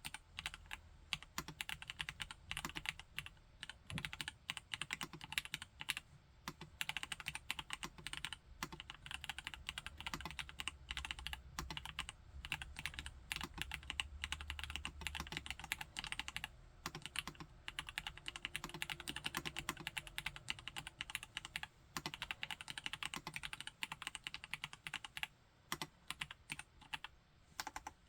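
Continuous typing on a Vortex Model M SSK winkeyless mechanical keyboard with Gateron G Pro Brown tactile switches: a dense, steady run of key strikes, broken by a few short pauses.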